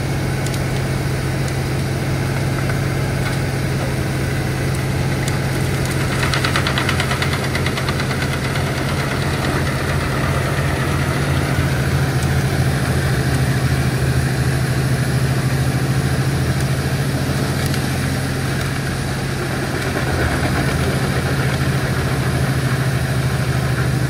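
Large Fendt tractor engine running steadily at working revs, powering a tractor-driven wood chipper that is chipping brash fed in by a crane grab. The chipper adds a constant rushing noise, with a dense rattling stretch about six seconds in.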